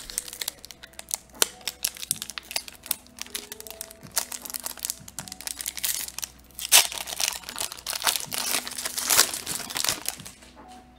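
Foil wrapper of a Magic: The Gathering draft booster pack crinkling and crackling as it is handled and opened, busiest about two thirds of the way through.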